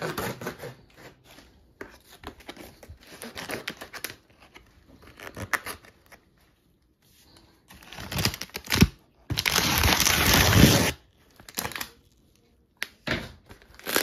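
Packing tape and cardboard being cut and ripped off a shipping box, with crinkling of its plastic wrap, in irregular scratchy bursts. A long, loud rip comes about two-thirds of the way through.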